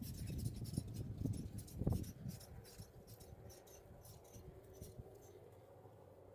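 Hands digging and rummaging through potting soil in a potato grow bag: soft rustling and muffled thuds, with one firmer thud about two seconds in, then only faint scattered clicks.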